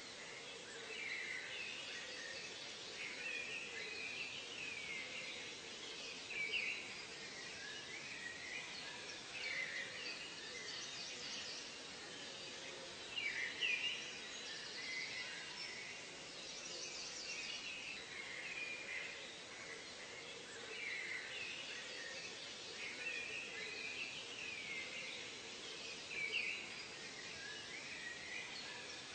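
Nature soundscape of many birds chirping, with short swooping calls overlapping one another above a steady background hiss. A few calls stand out louder than the rest.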